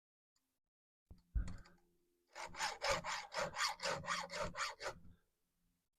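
Hand file being stroked quickly across a chainsaw chain's cutters to sharpen them, about eleven short rasping passes at roughly four a second. A light knock comes about a second in, before the filing starts.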